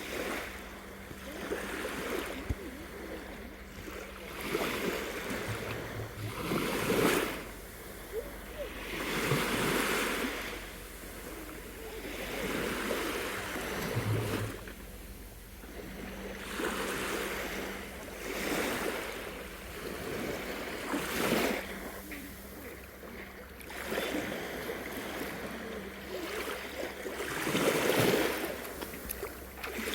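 Small waves of a calm sea washing in, each a soft rush that swells and fades every two to four seconds.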